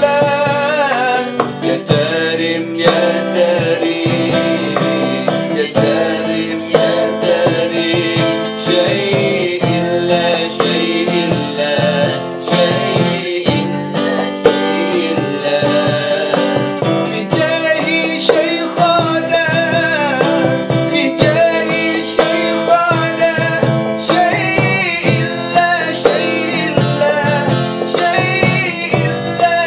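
Steel-string acoustic guitar strummed along with a cloth-covered hand drum beaten by hand in a steady rhythm, with singing over them.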